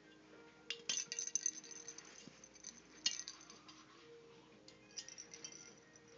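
Kitten batting small plastic toy balls, which rattle and clink in short bursts: a cluster about a second in, another around three seconds, and a smaller one around five seconds.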